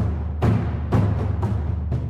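Background music with a steady drum beat over a low bass.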